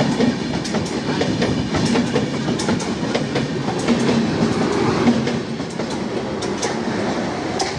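Indian Railways express trains passing each other at speed: coaches rush by close at hand with wheels clattering over the rail joints. The last coach clears about five seconds in and the noise eases slightly, leaving the running clatter of a train.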